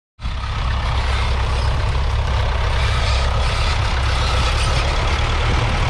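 Massey Ferguson 35's three-cylinder diesel engine running steadily while the tractor pulls a two-furrow mounted plough through stubble.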